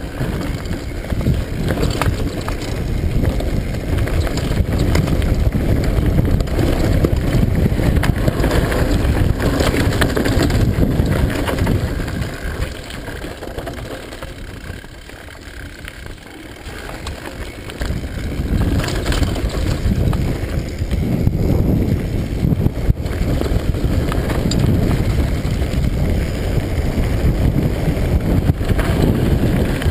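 Mountain bike descending a rocky dirt trail: wind rumbling on the microphone, tyres crunching over gravel and stones, and the bike rattling with frequent knocks. It quietens for a few seconds near the middle, then picks up again.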